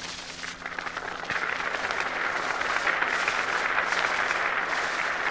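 A large crowd applauding, swelling in over the first second or so and then holding steady, with a steady low hum underneath.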